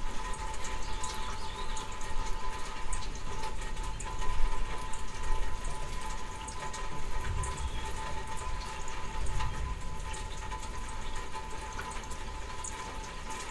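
Steady rain falling during a summer thunderstorm, with many small drop ticks and a few low rumbles.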